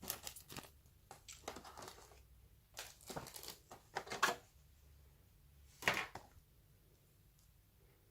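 Phone packaging being handled: a run of rustling, crinkling and clicking for the first four and a half seconds, then one louder crinkle about six seconds in.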